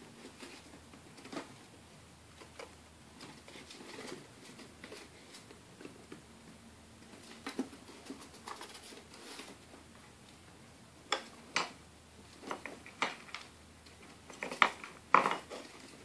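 Light clicks and knocks of a pet rat moving the pieces of a wooden puzzle toy, nudging its wooden lids and tipping over a small plastic cup, with faint pattering of its claws on a wooden floor. The clicks are scattered at first, and the loudest knocks come in a quick cluster in the last few seconds.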